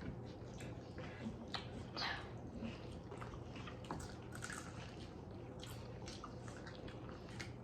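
Eating sounds: wet chewing and lip smacks as people bite into and chew their food, in irregular short clicks.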